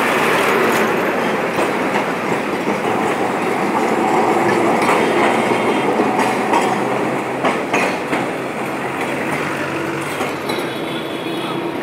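Two-car Kolkata street tram running past on its rails: a steady rumble of wheels on track with sharp clicks now and then, mixed with a bus passing close and street traffic.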